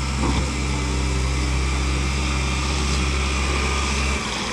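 Engine of a compact wheel loader running steadily at a low, even hum, which drops away suddenly near the end.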